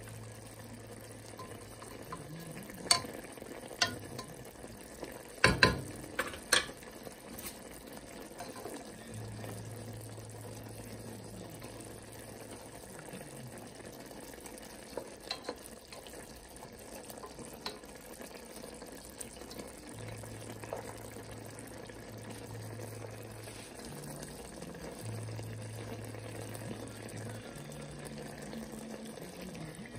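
Chicken adobo simmering in a pot, a soft steady bubbling hiss. A few sharp clacks of a spatula against the pot come about three to seven seconds in, with fainter ones later, and a low hum comes and goes.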